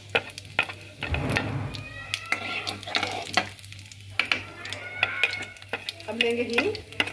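Cumin and ajwain seeds sizzling in hot oil in a steel kadhai, with a steel spoon clinking and scraping against the pan and a plate as the seeds are tipped in and stirred; a dull thump about a second in.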